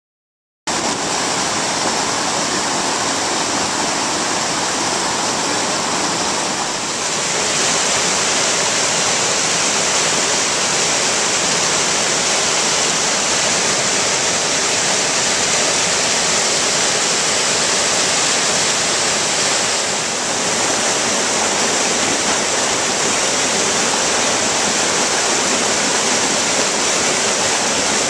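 Rock Creek, a Sierra Nevada mountain stream, rushing steadily over its rocks: a loud, even hiss of running water that cuts in abruptly less than a second in.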